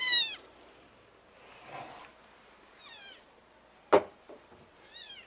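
Young kitten mewing: three high cries that fall in pitch, the first loud at the start and two fainter ones about three and five seconds in. The owner takes the crying as a sign the runt's lungs are sound. A single sharp knock comes just before four seconds in.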